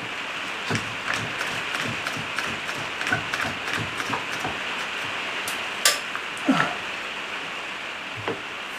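Heavy rain drumming steadily on a sheet-metal roof, with a few sharp knocks over it, the loudest about six seconds in.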